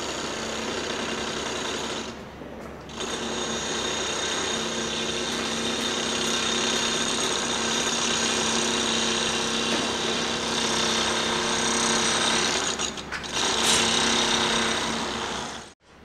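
Construction machinery running: a steady, dense mechanical rattle with a held whining tone. It dips briefly about two seconds in and cuts off just before the end.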